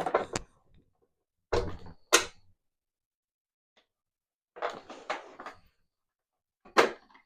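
A handful of short clicks, knocks and clatters of tools and plastic parts being handled on a Sebo XP commercial vacuum cleaner as its two cable-hook screws are undone, a second or two apart, the loudest a sharp knock near the end.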